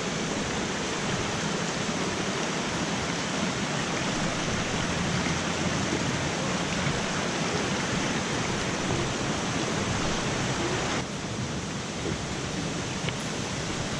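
Shallow mountain stream rushing over rocks, a steady wash of water noise that drops a little about eleven seconds in.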